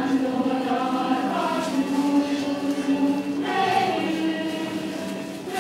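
A group of voices singing a song together in a choir, in long held notes, with a new phrase starting a little past halfway.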